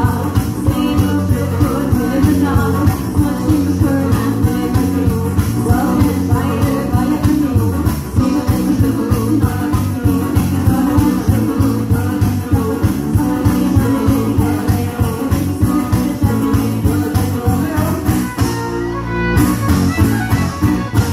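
Live folk-rock band playing with fiddle and acoustic guitar over a fast, steady beat. Near the end the beat stops and the band holds a final chord.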